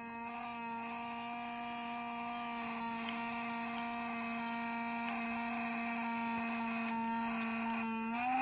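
Twin tiny 6 mm electric motors of a small RC boat whining at a steady pitch, with a brief rise in pitch near the end.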